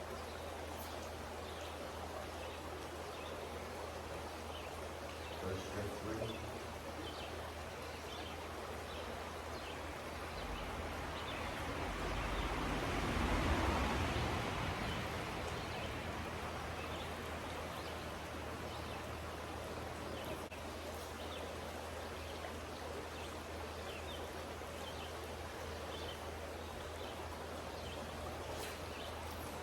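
Steady rush of creek water flowing over riffles. A broader rushing swell rises and fades over several seconds about halfway through.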